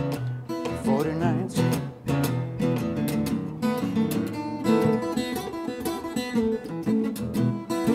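Small-bodied acoustic guitar fingerpicked in a blues style, solo: bass notes under single-note runs, with a few bent, wavering notes about a second in.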